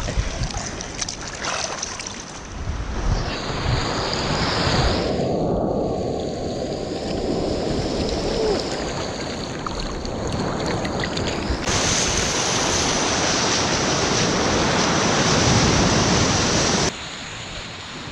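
Sea surf washing on the shore, with wind buffeting the microphone. The noise jumps louder abruptly about twelve seconds in and drops back sharply about five seconds later.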